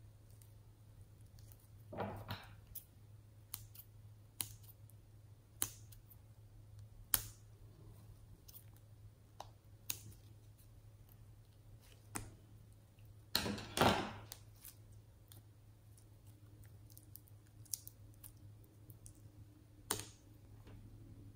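A mix of putty slime and store-bought slime being worked by hand, giving irregular sharp clicks and pops about every second or so. There are longer squelches about two seconds in and again a little past the middle.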